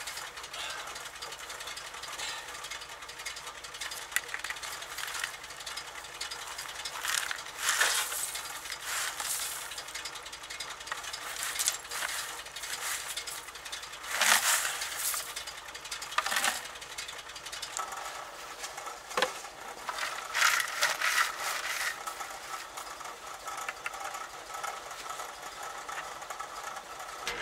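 Snow scraped and crunched in irregular bursts as it is dug away from a truck's tire with a plastic bucket, over the steady low idle of the dump truck's engine.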